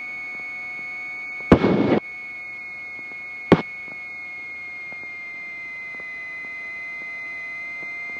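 Light-aircraft intercom and headset audio feed with a steady high electrical tone, broken by a short burst of static about a second and a half in and a sharp click about two seconds later.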